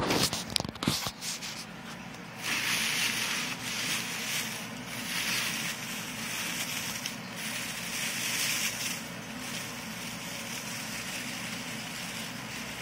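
Shredded newspaper packing rustling in a cardboard shipping box as hands dig through it, in swelling and fading waves, after a few sharp knocks in the first second or so.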